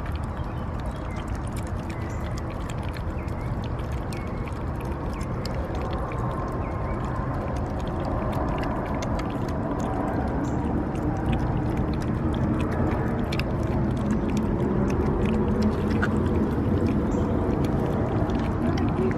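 Three cats eating wet pâté cat food from plastic bowls: continuous wet smacking, chewing and licking, with many small clicks. It gets somewhat louder in the second half.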